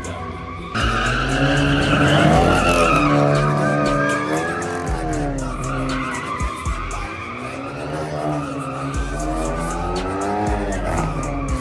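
A drifting car's engine revving hard, its pitch swinging up and down with the throttle over and over, while the tires squeal as the car slides; it gets louder about a second in.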